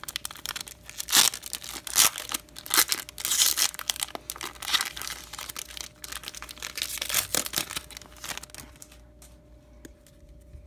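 Foil wrapper of a baseball card pack crinkling and tearing as it is ripped open, in irregular crackly rips, dying away to a few faint clicks near the end.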